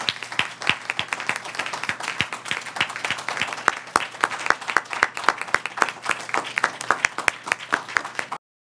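Applause from a small audience: many individual hand claps heard distinctly, which cut off suddenly near the end.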